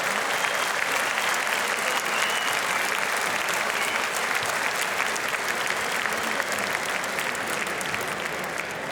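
Arena crowd applauding: a dense patter of many hands clapping, slowly dying down near the end.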